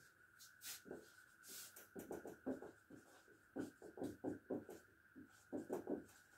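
Marker pen writing on a whiteboard: a quick, irregular series of short, faint strokes as letters and symbols are drawn.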